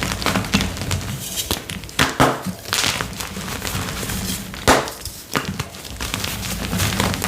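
Blocks of gym chalk crushed and crumbled by hand: irregular dry crunches and crackles with powder falling, the sharpest crunches about two seconds and nearly five seconds in.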